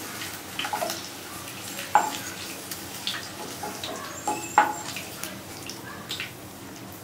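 Boiled potato pieces sizzling in hot oil in a kadai, a steady hiss, with a few sharp clinks of the spatula, loudest about two seconds in and again halfway through, as the browned pieces are lifted out into a glass bowl.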